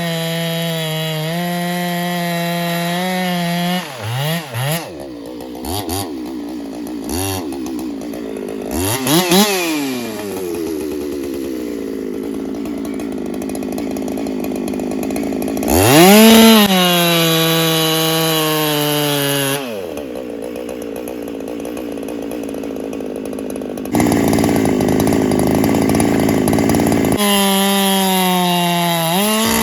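Solo 681 two-stroke chainsaw bucking firewood: running at high revs under load in the cut, then revving up and dropping back several times between cuts, and back in the cut near the end, its pitch sagging under load.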